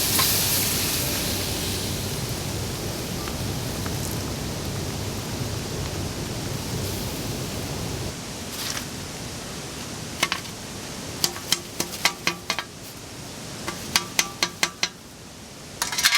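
Steady hiss of heavy rain, with a run of sharp snaps and crackles from a small campfire in the second half, coming in quick clusters.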